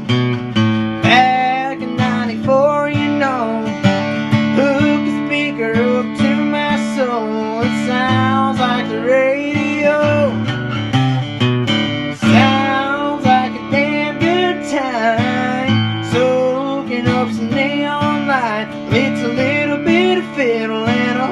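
Strummed acoustic guitar accompanying a singing voice, a country song played live.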